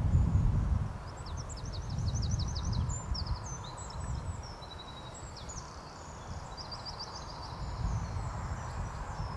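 Small songbirds singing in quick high chirps and rapid trills, over a low rumble of wind on the microphone that is loudest in the first second.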